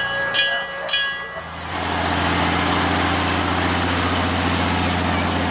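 Three short ringing clangs in the first second, then a vehicle engine starts running steadily at low speed with an even low drone.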